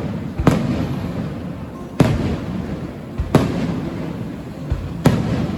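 Fireworks display: four sharp bangs about one and a half seconds apart, each trailing off into a low rolling rumble that carries on between them.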